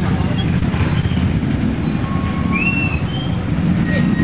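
Street traffic rumble, mostly motorcycles and motorcycle tricycles, steady and loud, with scattered short high squeaks and chirps over it.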